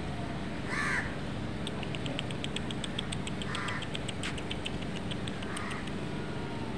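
Crows cawing: three short, harsh caws, with a fast run of faint high ticks, about six a second, through most of it.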